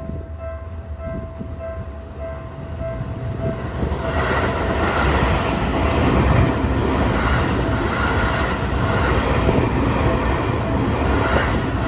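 Level-crossing warning bell ringing in quick steady pulses, then from about four seconds in a Seibu 001 series Laview electric limited express runs through the crossing, its wheels and motors drowning out the bell. The bell comes through again near the end.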